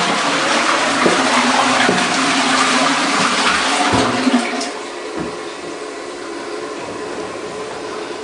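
Rushing water, loud for about four and a half seconds, then falling to a quieter steady flow.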